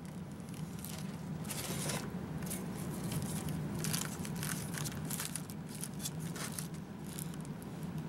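Clear plastic laminating film crinkling and crackling in short irregular bursts as it is stretched by hand and pressed onto the foam body of an RC airplane, over a steady low hum.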